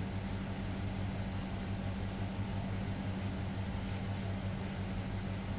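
A steady low electrical hum over an even hiss, with a few faint scratches of a pen drawing on paper about four to five seconds in.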